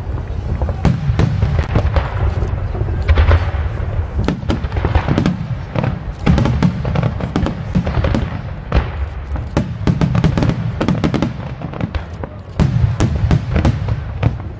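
Aerial fireworks shells bursting in a rapid, continuous barrage: many sharp bangs and pops over a steady low rumble.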